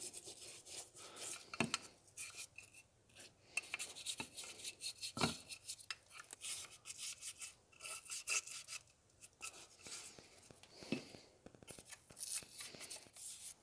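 Small stiff brush scrubbing and dabbing thick naval jelly rust remover onto rusty lantern metal parts: quiet, irregular scratchy strokes, with a couple of soft knocks.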